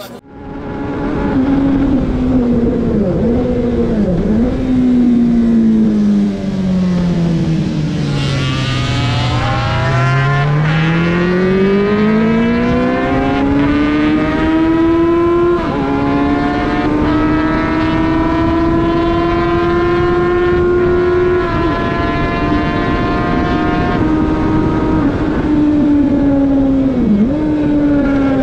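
Single-cylinder four-stroke engine of a heavily modified Junak racing motorcycle, heard onboard at racing speed. The engine note drops as the bike slows about eight to ten seconds in, then climbs again through the gears, with brief dips at the gear changes.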